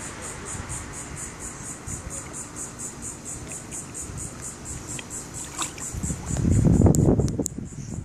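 Insects chirping in a fast, even pulse. About six seconds in, a louder burst of water sloshing and lapping as a dog wades and drinks in a pond.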